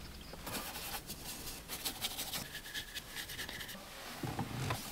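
Soft detailing brush scrubbing glossy piano-black car interior trim with interior cleaner: a quick run of light, scratchy brush strokes that stops about a second before the end.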